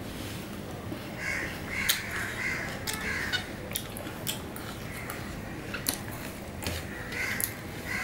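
Crows cawing repeatedly, in runs of harsh calls about a second in, around three seconds and near the end. Small sharp clicks and smacks of eating by hand from a steel plate sound in between.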